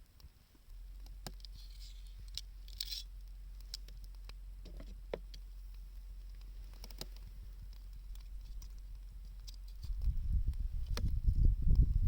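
Wood fire crackling with sparse, scattered pops. Blizzard wind rumbles on the microphone and gusts much louder about ten seconds in.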